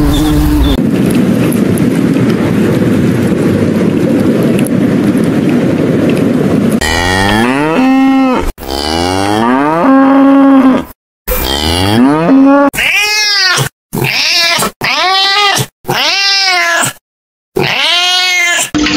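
A wasp's steady buzzing for the first several seconds, then a cow mooing three times. After that, a cat meows five times in a row, each meow rising and falling in pitch.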